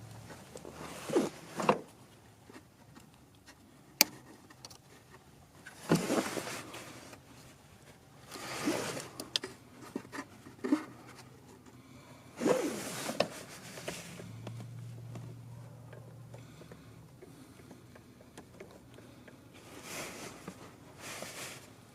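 Hand-tool prying at a BMW N62 V8's eccentric shaft sensor and its retaining clips: scattered scrapes and rubs, with a sharp click about four seconds in, as the stuck sensor is worked loose.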